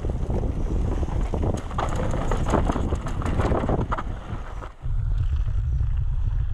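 Trek Session downhill mountain bike ridden fast over a rooty trail: tyres, chain and frame clattering over the roots, with wind buffeting the camera microphone. About five seconds in the clatter drops away, leaving mostly low wind rumble.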